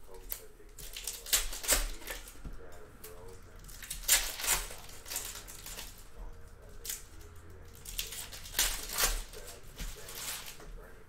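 Foil wrappers of Panini Donruss Optic basketball hobby packs crinkling and tearing as packs are ripped open, in a series of short crackly bursts, with cards handled in between.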